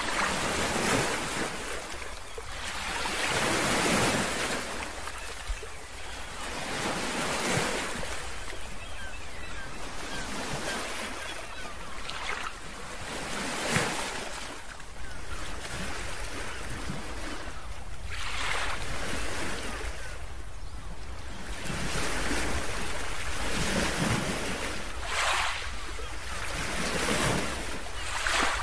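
Ocean surf washing in over a rocky shoreline, with the rushing noise swelling and falling back every few seconds as waves break. A steady low wind rumble sits underneath.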